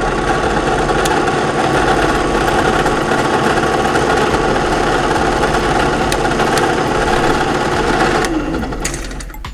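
WEN variable-speed drill press running steadily with a motor hum and whir, then switched off a little before the end and winding down in pitch.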